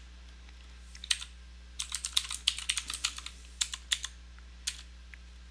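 Computer keyboard keys tapped as a password is typed: a single keystroke about a second in, a quick run of keystrokes in the middle, then a few more, over a steady low hum.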